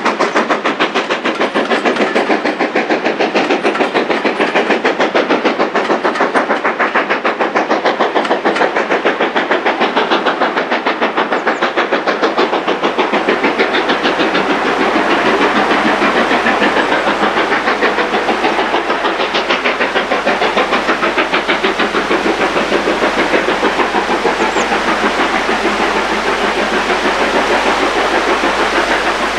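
Steam locomotive working a passenger train, its exhaust beating in a fast, steady rhythm without a break.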